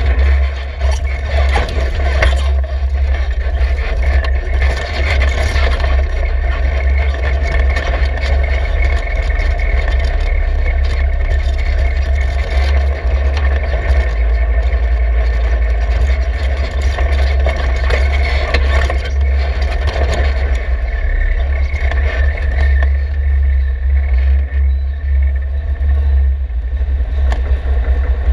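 Side-by-side UTV engine running steadily as it drives over a dirt trail, with a heavy low rumble under it.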